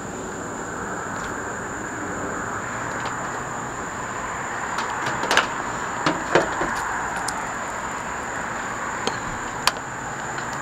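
A few short clicks and knocks of a solar cable and its plug connector being handled on the metal van roof, the sharpest about five and a half seconds in, two more just after six seconds and one near the end. Behind them runs steady outdoor background noise with a constant high whine.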